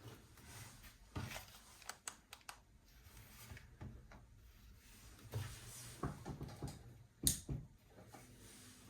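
Plastic toy parts and packaging being handled: scattered sharp clicks and short rustles, with the loudest click about seven seconds in.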